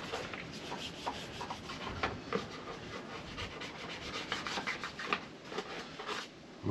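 Toothbrush scrubbing a motorcycle part clean in quick, irregular scratchy strokes.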